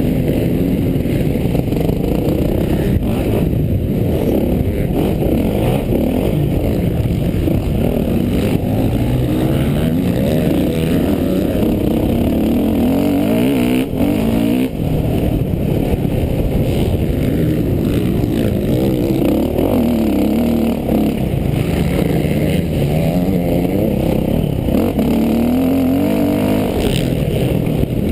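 Motocross bike engine revving hard and falling back over and over as the rider works the throttle and shifts gears around the track, heard from on board.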